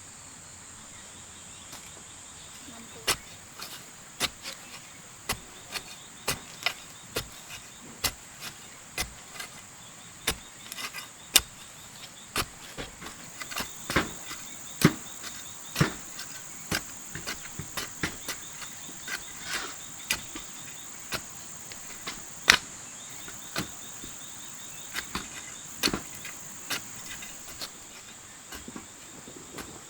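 Irregular sharp knocks or taps, about one or two a second, over a steady high insect buzz.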